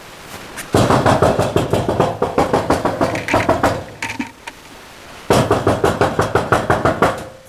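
Corrugated sheet-metal door being banged on rapidly by hand, rattling in its frame: two long runs of quick blows with a short pause between.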